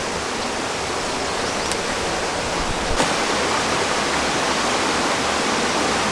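Steady rushing noise, even and unbroken, with a single sharp click about three seconds in.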